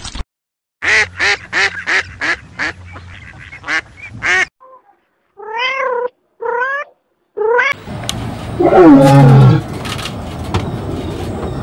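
A quick run of about a dozen short, sharp animal calls, then a kitten meowing three times, each meow rising and falling. Near the end a lion gives a loud call that slides down in pitch.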